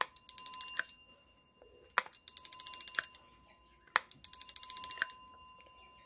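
Electric fire alarm bell rung in three short bursts of about a second each, its striker rattling fast against the gong. A push-button clicks as the bell is switched on and off around each burst.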